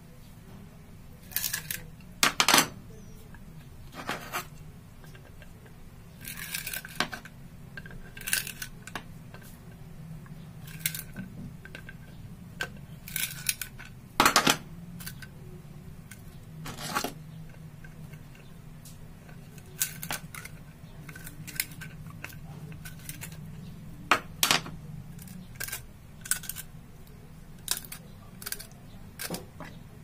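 Plastic faucet parts clicking and knocking as they are handled and taken apart, in irregular sharp clicks a second or two apart, over a low steady hum.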